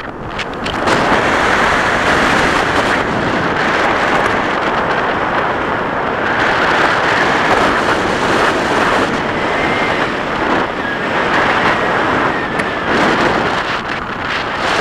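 Wind rushing over the microphone of a camera on a tandem paraglider in flight: loud, steady wind noise.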